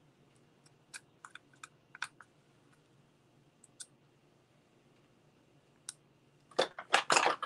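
Light, scattered clicks of small plastic and metal RC-car parts being handled while rear shocks and their nuts are fitted by hand. About six and a half seconds in comes a quick run of louder clicking and clatter.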